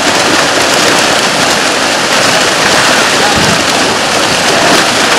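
Steady, dense splashing of a large mass of fish leaping and thrashing at the water's surface inside a drawn-in net.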